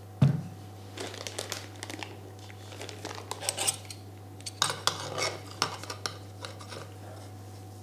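Spoon scraping and tapping stiff choux pastry dough out of a nonstick pot into a plastic piping bag, the bag crinkling, in scattered bunches of clicks and scrapes. A dull thump sounds just after the start.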